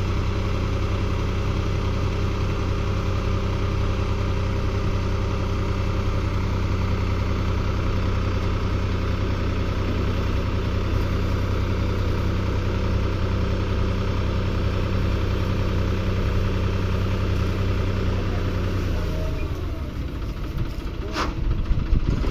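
Tractor's diesel engine running steadily, driving the hydraulics that tip the loaded trailer bed. About 19 seconds in the engine note drops and changes, and a single sharp knock follows near the end.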